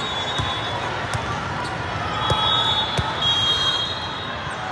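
Volleyballs being hit and bouncing in a large hall full of courts: sharp thuds about once a second over a steady din of chatter. A whistle sounds for about a second and a half in the middle.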